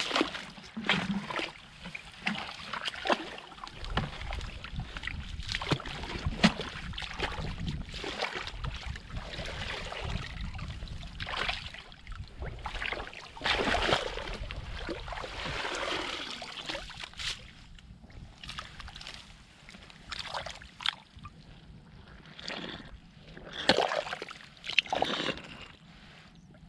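Irregular splashing and sloshing of shallow muddy water as hands and a woven bamboo basket scoop and stir through it.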